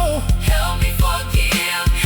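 Gospel song backing music with a steady drum beat and a gliding melody line over it.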